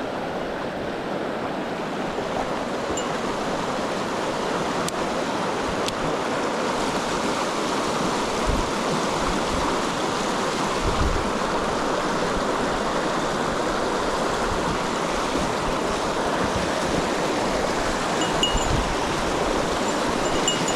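Mountain stream water rushing steadily over rocks, with a few brief low bumps.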